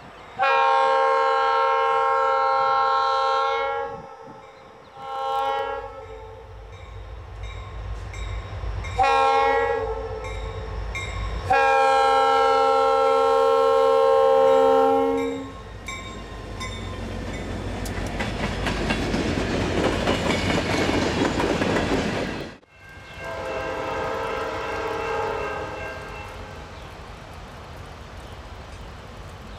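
Norfolk Southern diesel freight locomotive's air horn sounding four blasts, the first and last long and two shorter ones between. The deep rumble of the lead locomotives then grows louder as they pass close by. After a sudden break, another train's horn sounds one quieter blast of about three seconds.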